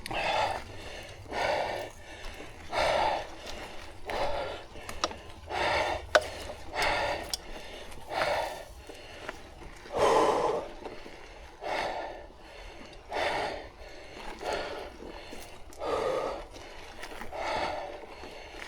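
A cyclist breathing hard on a steep climb: loud, rhythmic exhalations about every second and a half, with a few light clicks between them.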